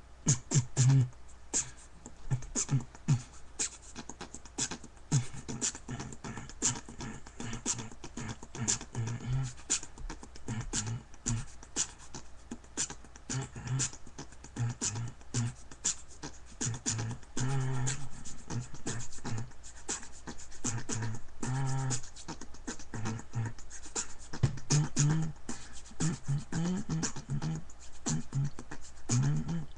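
A person beatboxing: fast, rhythmic mouth clicks and hisses for the drum sounds, with short hummed low bass notes between them.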